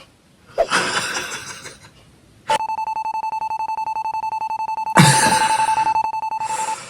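Electric fire alarm bell ringing rapidly on one steady high tone, starting about two and a half seconds in and stopping just before the end. A loud burst of noise comes about half a second in, and another one lies over the bell around five seconds in.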